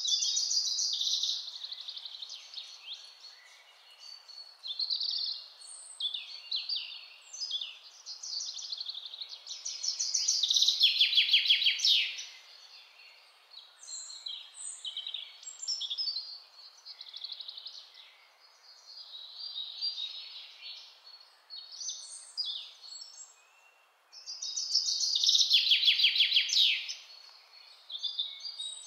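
Songbirds singing, a mix of chirps and short whistled phrases, with loud rapid trills about ten seconds in and again near twenty-five seconds, over a faint steady background hiss.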